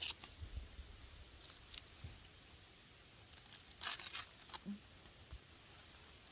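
Celery plants being handled and pulled during harvest: scattered crackling and tearing of stalks and leaves, with a louder cluster of crackles about four seconds in.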